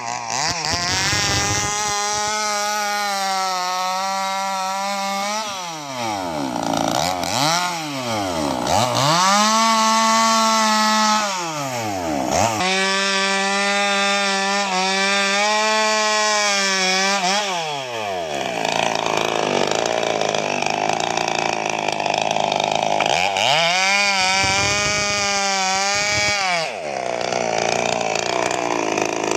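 Two-stroke chainsaw cutting through felled sengon logs, held at high revs through the cuts, with the revs dropping and swinging back up several times between cuts.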